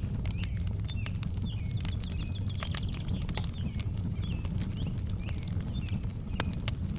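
Fireplace fire crackling: frequent sharp pops and snaps over a steady low rumble, with faint short high chirps repeating in the background.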